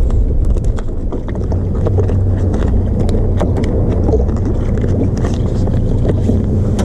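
A boat's engine running steadily, a low rumble mixed with wind buffeting the microphone. Scattered light clicks and knocks sound over it.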